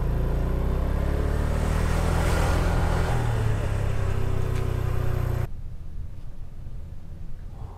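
Motorcycle engine running at low riding speed, with wind rushing on the microphone. It cuts off abruptly about five and a half seconds in, leaving a much quieter background.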